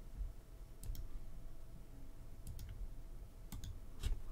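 A handful of short, sharp clicks of computer keys and buttons being pressed, several in quick pairs, over a faint steady hum.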